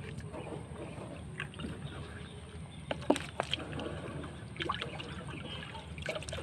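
Water sloshing, with a few short splashes and knocks scattered through, over a low steady rumble and a thin, steady high-pitched tone.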